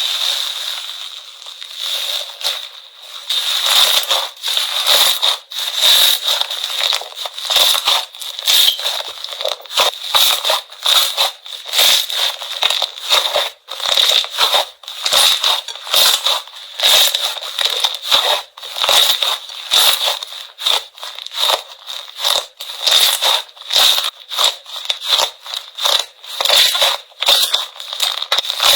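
Slime being pressed and squeezed by hand, giving a continuous run of sharp crackles and pops, a few every second.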